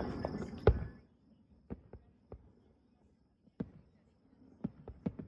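Fireworks going off: one sharp bang less than a second in, then a scattering of fainter, separate pops and cracks.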